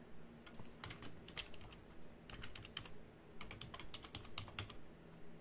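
Faint typing on a computer keyboard, in a few short runs of keystrokes.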